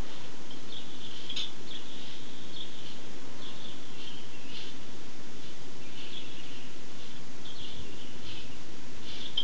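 Small birds chirping in short, irregular calls over a steady hiss.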